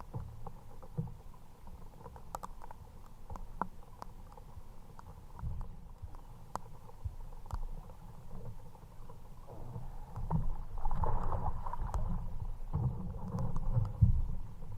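Water slapping and gurgling against the plastic hull of a fishing kayak, with an irregular low rumble and scattered light ticks. A stronger wash of water comes up about ten seconds in.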